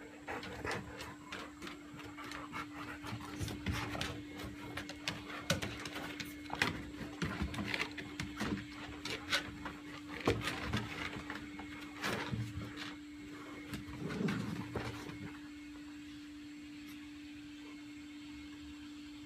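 Two golden retrievers play-fighting: panting and scuffling with many irregular sharp clicks, which stop about three quarters of the way through.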